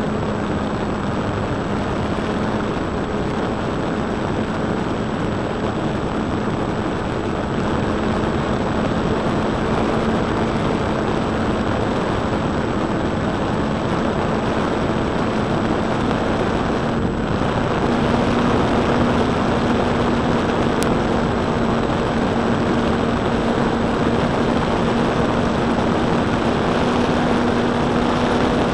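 Motor and propeller of a Precision Aerobatics Extra 260 model aerobatic plane in flight, heard from a cheap keyfob camera taped under the fuselage: a steady drone with a hum-like tone over a dense rush of noise. About two-thirds of the way in, the tone steps up slightly and the sound gets a little louder.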